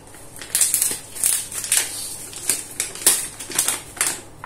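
Paper flour bag rustling and crinkling as it is handled, in a string of short, irregular bursts.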